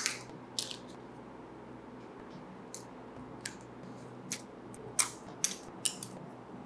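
Steel spudger prying inside a smartphone, popping flex-cable connectors and small brackets off the circuit board: an irregular series of sharp, light clicks, the first the loudest.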